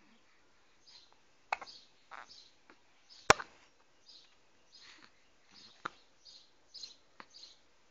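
Newborn baby hiccuping: a string of short, sharp hiccups one to three seconds apart, the loudest about three seconds in, with soft, brief breathy sounds between them.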